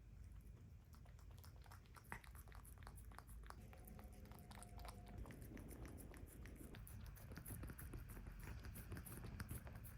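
Faint, rapid small clicks of a cat chewing.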